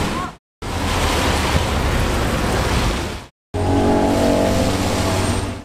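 Cars driving past on a wet road, their tyres hissing through the water over their engine notes, cut off twice by brief silences between clips. The last passing car has a clearer, steady engine note.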